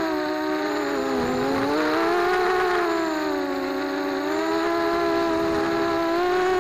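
FPV racing quadcopter's brushless motors and propellers whining, heard from its onboard camera, the pitch sagging and rising several times as the throttle changes.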